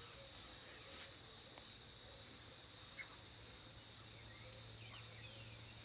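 Insects trilling, one steady high-pitched tone that does not break, with a few faint short chirps over it.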